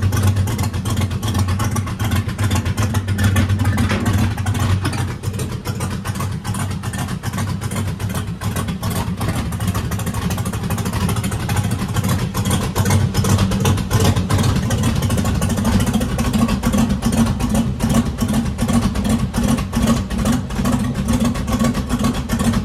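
Turbocharged LS V8 running steadily with a pulsing exhaust note, the exhaust dumping straight out through a short pipe in the hood. The tone shifts a little higher about two-thirds of the way through.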